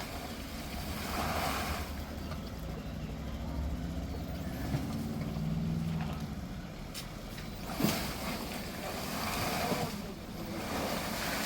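Tata Harrier EV electric SUV crawling over rough off-road ground: a steady low rumble from tyres and suspension with no engine note, and a single knock a little before eight seconds in.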